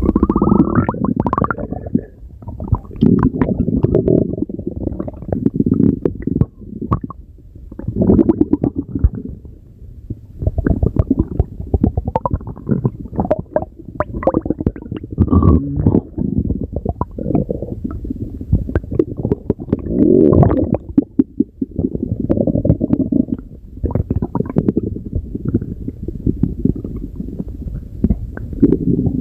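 Stomach growling: a long run of low rumbles in bouts of a second or two, with crackly clicks through them and short lulls between.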